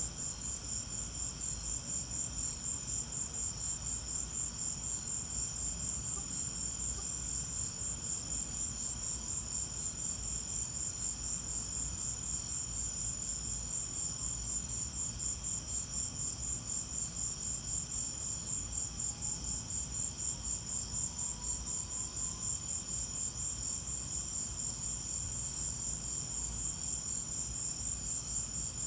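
Crickets chirping in a steady, dense chorus, a high-pitched pulsing that repeats evenly without a break.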